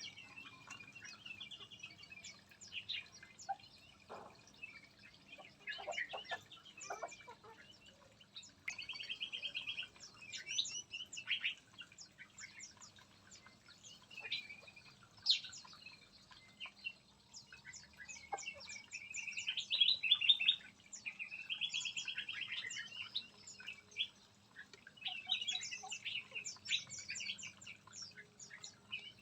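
Several songbirds chirping and calling over one another, a mix of short chirps and rapid buzzy trills, with the loudest flurry about two-thirds of the way through.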